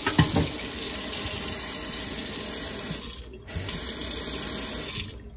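Water running from a Pfister kitchen faucet into a stainless steel sink, with a couple of knocks just after the start. The flow cuts out briefly about three seconds in, comes back, then stops near the end as the handle is worked to check the newly replaced cartridge.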